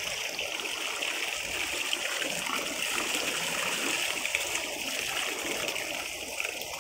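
Water pouring and splashing out of the end of a cement pipe crab trap as it is lifted from a stream, falling back onto the water surface. The pouring eases near the end.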